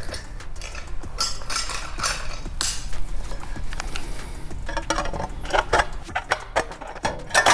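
Metal step flashing being cut off and handled at a skylight's side: a run of sharp metallic clicks and clinks, coming faster in the second half.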